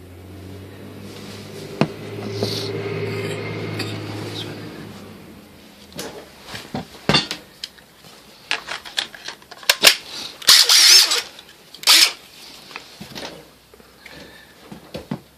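A steady low hum swells and fades over the first four seconds or so. It is followed by a long run of sharp clicks and clatters as the hard-plastic cordless drill, impact driver and battery are handled.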